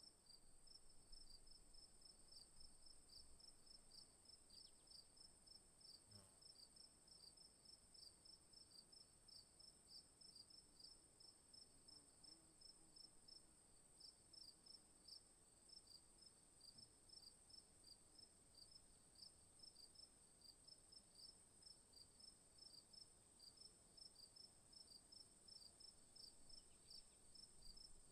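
Faint insect chorus of crickets: a steady high-pitched trill with a quick, even series of chirps a little lower in pitch running over it.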